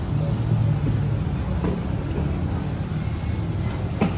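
Steady low background rumble with a few faint clicks, and a sharp tap about four seconds in as a wooden skewer strikes a plate.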